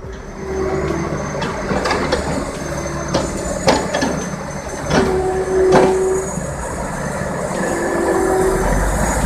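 Loaded log trucks and timber handling: scattered sharp knocks and clattering of heavy logs and machinery over a steady rumble. Four short, high squeals come and go through it.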